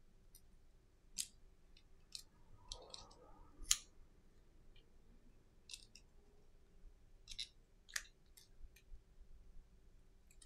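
Small sharp clicks of metal tweezers working on a Samsung Galaxy S10's internal parts, clicking against components and connectors at irregular intervals, with the loudest clicks about four and eight seconds in.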